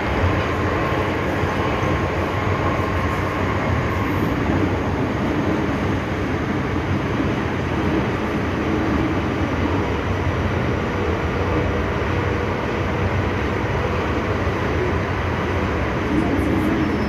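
Steady rumble and running noise inside an MTR M-Train carriage, with a faint tone in the first few seconds.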